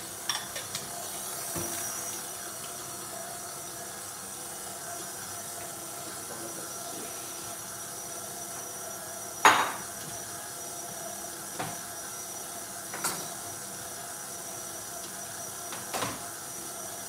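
KitchenAid Classic stand mixer running steadily at medium speed, its dough hook kneading pizza dough in the steel bowl, the last stage once the dough ball has come away from the sides. A few knocks break the motor noise, the loudest about halfway through.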